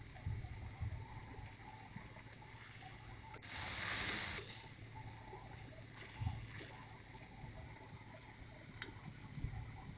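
Chopped water lily stems and shrimp being stir-fried in a kadai with no water added: a few dull knocks of the spatula, and a brief hiss of sizzling about three and a half seconds in, the loudest sound.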